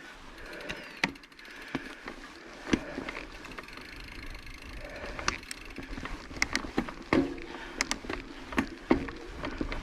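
Mountain bike riding a dirt trail: continuous tyre and trail noise with irregular sharp clicks and knocks from the bike rattling over bumps, and a low rumble that grows toward the end.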